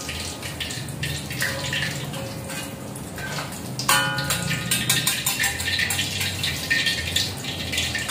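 Hot oil sizzling steadily in a wok as fried seasonings are scooped out, with a metal spatula and strainer scraping and clinking against the pan, one clink about four seconds in ringing briefly.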